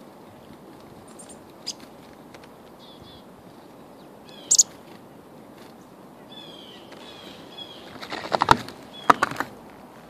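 Black-capped chickadees calling, with short high notes and a quick bright call about halfway, then a run of repeated notes. Near the end there are a few loud sharp knocks, the loudest sound here.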